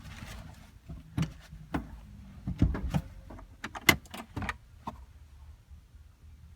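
Sharp plastic clicks and knocks as the glove box of a 2002 Honda Civic is worked open and off its clips: a scatter of irregular knocks over about four seconds, the sharpest about four seconds in, then quieter handling.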